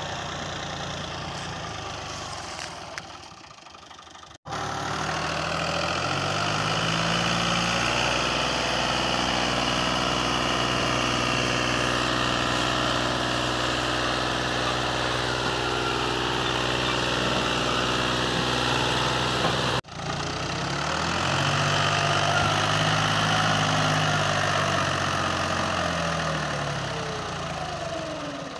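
Tractor engine labouring hard as it pulls a heavily loaded sugarcane trolley, revving up in pitch and holding high. It breaks off abruptly twice, a little after four seconds and near twenty seconds; after the second break it climbs again, then falls in pitch near the end.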